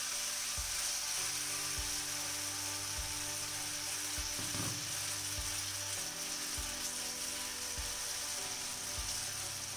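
Rice-and-potato batter sizzling steadily in oil on a hot iron tawa, over soft background music with a low beat about once a second.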